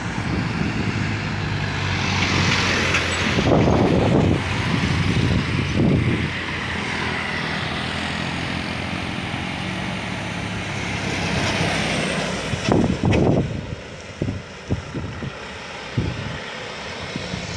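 Road traffic passing through a sharp bend: a tour bus's engine and a motorcycle going by close, loudest in the first few seconds and fading near the end as the bus drives away.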